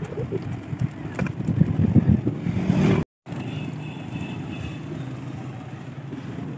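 Wind rumbling and buffeting on the microphone of a moving rider for about three seconds. After a sudden brief dropout, a steadier low hum of vehicle and road noise.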